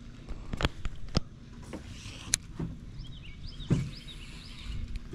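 Sharp clicks and knocks of a baitcasting rod and reel being handled and cast from a boat, about half a dozen in all, with the loudest sharp click about halfway through and a duller knock a little later.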